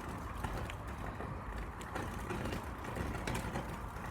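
Bonfire crackling, with scattered small pops and snaps over a steady low rumble.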